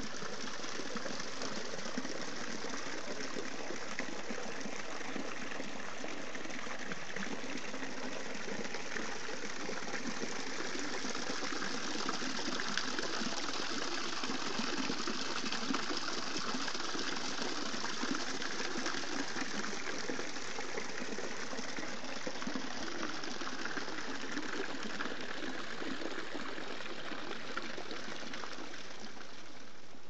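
Small spring-fed waterfall trickling off a rock ledge and splashing steadily into a shallow rock pool.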